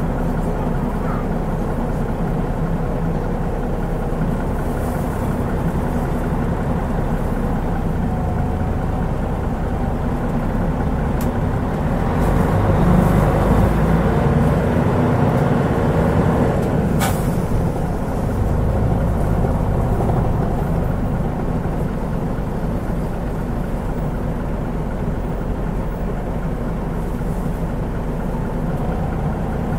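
Mitsubishi Fuso Aerostar bus with a turbocharged 6M70 engine running, engine and road noise heard from inside the bus. It grows louder from about twelve seconds in for several seconds, and a brief sharp click-like sound comes about seventeen seconds in.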